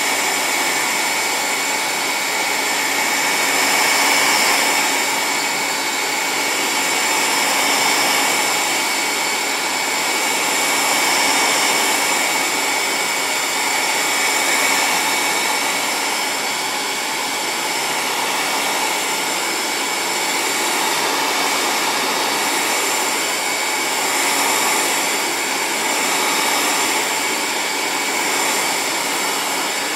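Hot-air blower running steadily, a constant rushing hiss with a thin high whine, the level rising and falling gently every few seconds as it is swept along heat-shrink tubing being shrunk onto a bicycle seatpost.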